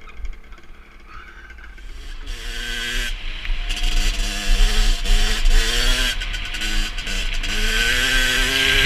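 Rieju MRT SM supermoto engine revving under way, getting louder from about two seconds in. Its pitch drops and climbs again several times, with a hiss of wind or exhaust over it.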